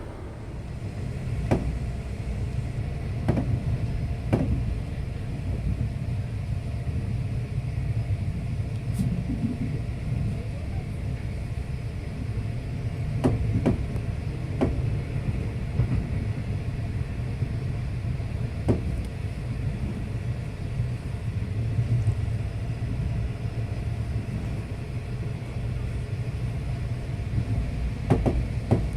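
Passenger train carriage running along the line: a steady low rumble with occasional sharp knocks from the wheels and running gear.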